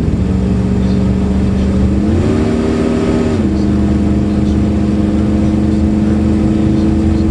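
Car engine running under light throttle while driving, heard from inside the cabin over low road rumble. The revs rise about two seconds in, hold for about a second, then drop back and stay steady.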